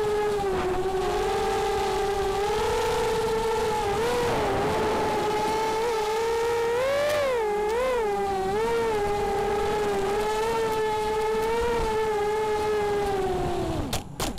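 The FPV quadcopter's four Cobra 2204 2300KV brushless motors spinning HQProp 4x4.5 propellers, a steady whine that rises and dips with throttle changes in flight. Near the end the pitch falls away sharply as the quad comes down and the motors spool down.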